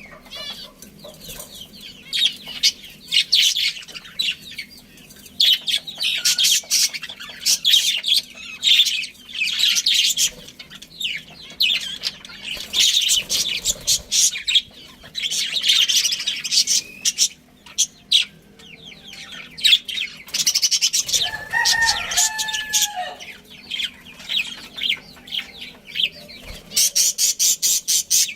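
Flock of budgerigars chattering and chirping in rapid bursts, with a lower, drawn-out call about three-quarters of the way through.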